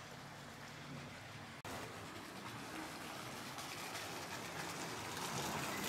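Faint outdoor background noise: a low, even hiss that grows slowly louder, broken by a brief dropout about a second and a half in.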